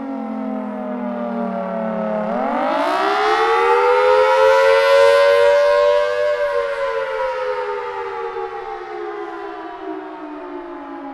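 Federal Signal Thunderbolt outdoor warning siren sounding a wail during its test. Its pitch is sinking low, then about two seconds in it sweeps sharply up to a loud peak and slowly falls away again.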